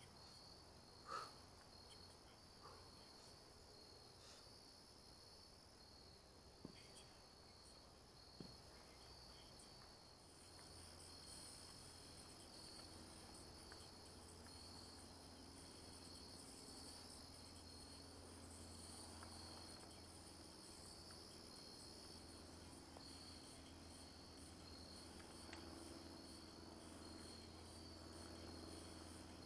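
Faint chorus of crickets chirping, a steady pulsing trill high in pitch. A few faint knocks come in the first several seconds, and a low hum comes up about ten seconds in.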